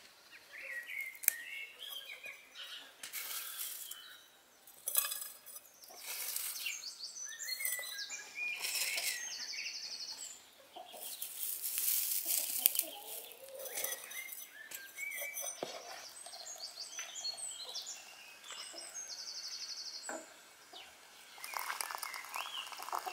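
Dried thyme and herbs crackling and rustling as they are crumbled by hand into a metal kettle, with a few sharp clicks, while birds chirp throughout. Near the end, water runs from a samovar tap into the kettle.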